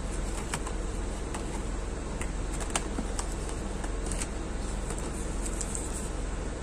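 Hands handling a new smartphone in its plastic protective film and its cardboard box: faint scattered clicks and rustles, over a steady low background hum.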